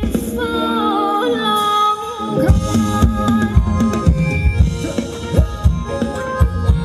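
Thai ramwong dance band music played over a loudspeaker stack. A held, wavering sung melody runs with the drums dropped out, then the drums and bass come back in about two and a half seconds in with a steady dance beat.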